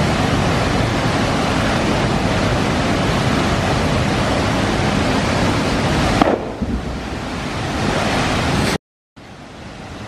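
Waterfall rushing steadily as it plunges into a pool. About six seconds in a short sharp sound stands out, after which the rush is quieter, and the sound cuts out for a moment near the end.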